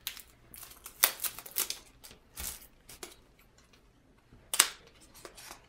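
Hands opening a small cardboard playing-card box wrapped in plastic shrink wrap: irregular short crinkles and taps of plastic film and card stock, the sharpest about a second in and again near the end.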